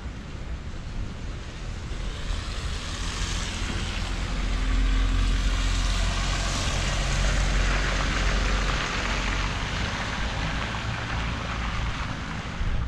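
A vehicle passing on a wet, slushy road: tyre hiss over engine rumble swells over a few seconds, is loudest midway, then fades.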